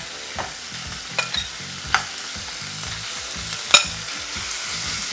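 Thin-sliced marinated beef sizzling in a nonstick frying pan as it is stirred with metal tongs, with a few sharp clicks of the tongs, the loudest a little before four seconds in.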